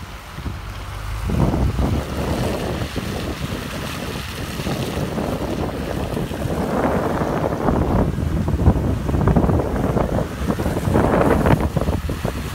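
Wind buffeting the microphone from a moving car, a gusty rumble with the car's road noise beneath it.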